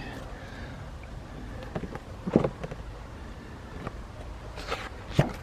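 Steady low background rumble with a few brief rustles or knocks, one about two seconds in and two near the end.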